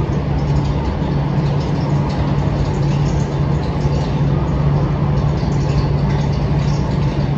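Steady, unchanging low mechanical drone of a running machine, with a constant hum.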